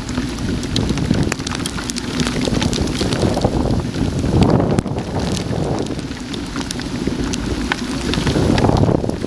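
Heavy rain and gusting wind buffeting an action camera's microphone in a storm, a dense steady rumble, with many sharp ticks of raindrops striking the camera.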